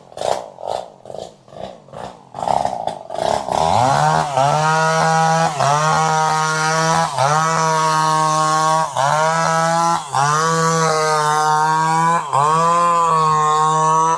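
Chainsaw engine sputtering in uneven pulses, about three a second. About three and a half seconds in it runs up to a steady high-speed drone that dips briefly about every second and a half.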